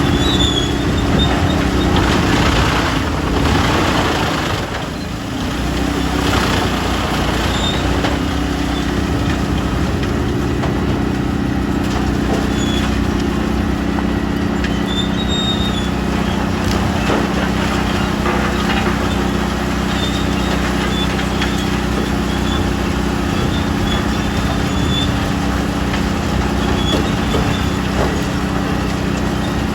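Tractor-driven wood chipper running steadily under load while chipping logs, with a brief dip in level about four to five seconds in.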